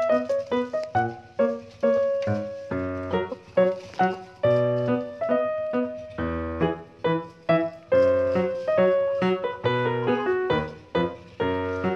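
Background music: a keyboard tune of struck notes, each dying away quickly, over a lower bass line.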